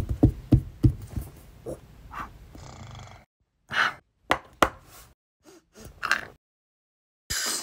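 Footstep knocks that fade away over the first second and a half, then a few short, breathy velociraptor sniffs and snorts with dead silence between them. A louder noise starts just before the end.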